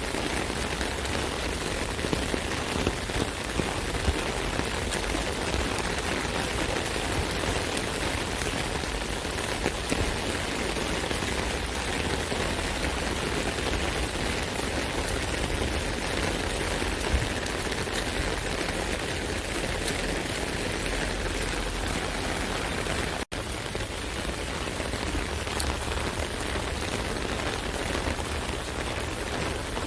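Steady rain pattering on an umbrella canopy: a dense, even hiss of drops with scattered sharper taps. The sound cuts out for an instant about two-thirds of the way through.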